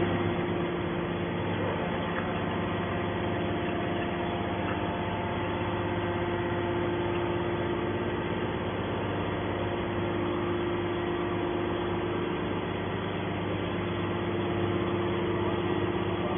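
Hydraulic scrap-metal baler's power unit running with a steady, even hum.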